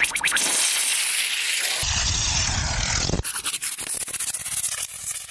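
Solid-fuel long-burn rocket motor burning on a small model boat, a loud steady rushing hiss that changes abruptly about two and three seconds in, with rapid crackling in the last couple of seconds.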